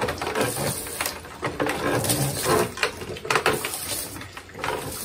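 Homemade wooden sugarcane press (trapiche) being worked by hand, irregular knocking, clicking and creaking as stalks of cane are crushed between its rollers.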